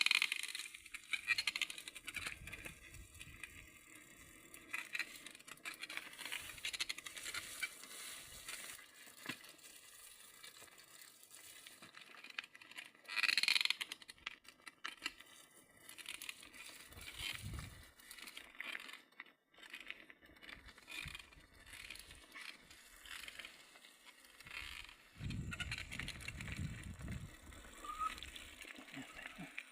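Footsteps crunching and crackling through dry leaf litter and brush, with a few low rumbles on the microphone.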